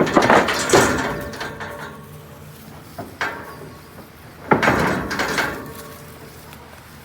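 Steel livestock gates and pens banging and rattling as cattle are driven through. There are two loud bangs at the start, a pair about three seconds in, and the loudest about four and a half seconds in, each ringing and rattling before it dies away.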